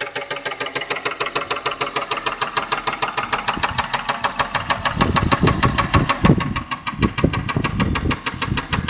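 Toyota Cresta's 1JZ straight-six running with a loud, regular knock of about eight strikes a second. It is the stray knock in the engine that new spark plugs have not cured. A louder, uneven low rumble joins it from about halfway through until near the end.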